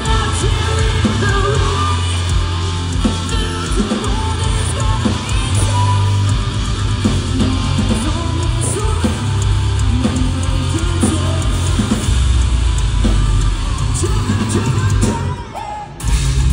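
A heavy rock band playing live: distorted electric guitar and a drum kit with a singer's voice. Near the end the music drops out briefly, then the full band comes back in.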